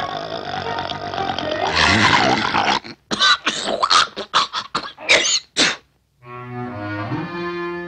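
Cartoon orchestral score with strings. About three seconds in, it gives way to a cartoon dog's voice making a quick run of a dozen or so short, sharp vocal sounds. Soft, held music notes come back near the end.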